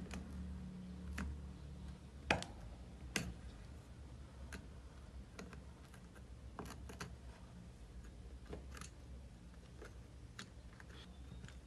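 Faint, irregular light clicks and taps, roughly one a second, as multimeter probe tips are set down on solder points of a washing machine circuit board, over a faint low hum.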